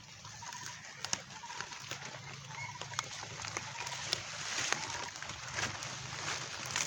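A short animal call, likely a bird, repeating roughly once a second over a steady outdoor hiss, with scattered light clicks and taps.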